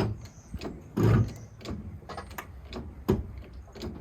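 Mechanical clicking and knocking at about two to three strokes a second as the cabover's tilt cab is jacked up, with two louder thumps, about a second in and about three seconds in.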